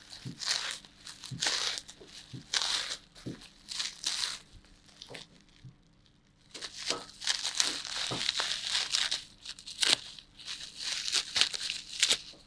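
Plastic packaging of a new laptop RAM module crinkling and tearing as it is unwrapped by hand, in irregular rustles with a short pause midway.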